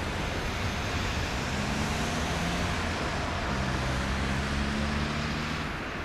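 Boeing 777-300ER's twin GE90-115B turbofans at takeoff thrust, heard from behind as the airliner rolls away down the runway: a steady deep rumble of jet exhaust, easing slightly near the end.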